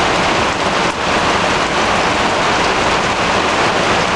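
Heavy rain falling steadily on a plastic tarpaulin overhead, a loud, even downpour.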